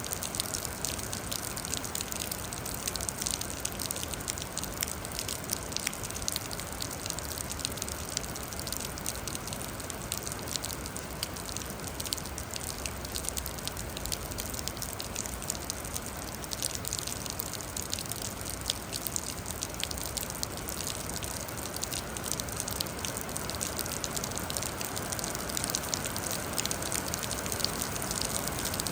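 Steady rain falling, with many sharp individual drop hits over an even hiss.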